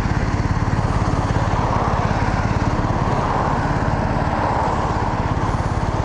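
Yamaha FZ1's inline-four engine idling steadily, a fast, even low pulsing with no change in speed.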